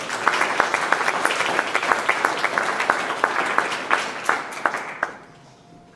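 Audience applauding, a crowd of many hands clapping, which dies away about five seconds in.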